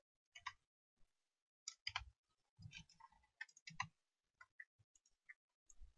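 Faint, irregular clicking and tapping of a computer keyboard and mouse, a dozen or so scattered key and button presses.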